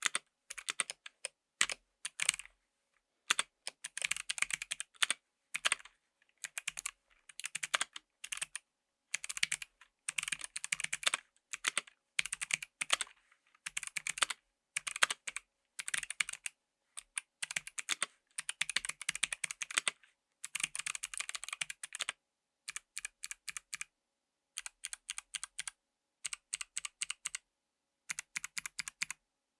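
Typing on a mechanical keyboard with Kailh BOX Navy clicky switches: a heavy spring and a thick, loud click on every keystroke. Fast runs of sharp clicks come in bursts with short pauses, and about two-thirds of the way through they give way to sparser, more evenly spaced strokes.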